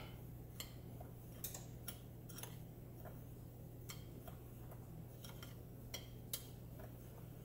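Metal spoon stirring a dry spice rub in a small glass bowl: faint, irregular light ticks as the spoon touches the glass, over a low steady hum.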